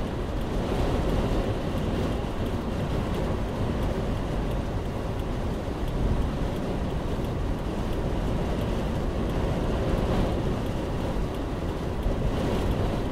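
Steady road and wind noise inside the cabin of a 2014 Subaru Crosstrek driving through strong gusting wind, picked up by the dashcam's microphone.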